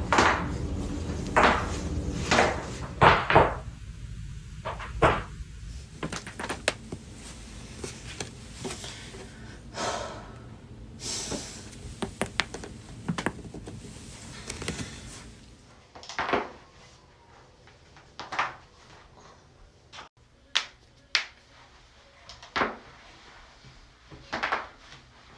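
Back cracking: a series of sharp pops and cracks from spinal joints being adjusted, coming at uneven intervals and sometimes in quick clusters. The loudest cracks fall in the first few seconds.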